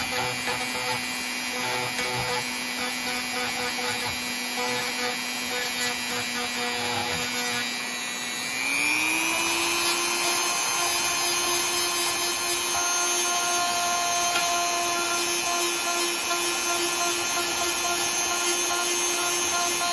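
Rotary tool with a ball-shaped burr grinding a knot out of a wooden board: a steady motor whine over the hiss of the burr cutting wood. A little under halfway through the motor speeds up, its pitch rising and the sound getting louder, and it stays at the higher speed.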